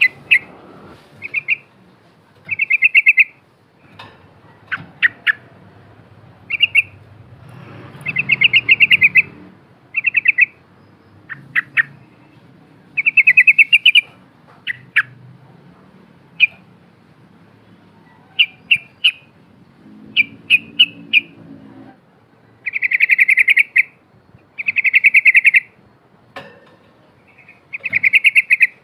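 Yellow-vented bulbul (trucukan) singing: loud, bubbling phrases of rapid trilled notes, each about half a second to a second long, broken up by short sharp chirps, one after another every second or two.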